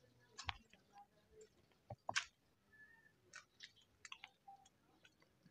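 Near silence broken by scattered faint clicks and taps, the loudest a couple about two seconds in, with a brief faint chirp-like tone near the middle.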